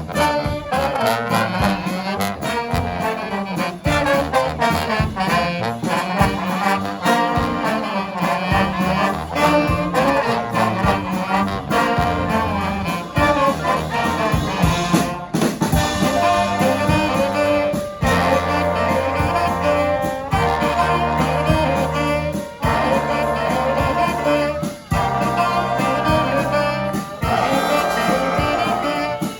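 Brass band playing live, trumpets and trombones together. The playing stops short for a moment a few times in the second half.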